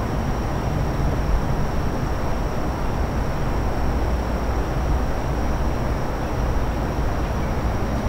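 Outdoor forest ambience dominated by a steady low rumble of distant machinery, with a thin, steady high-pitched tone above it.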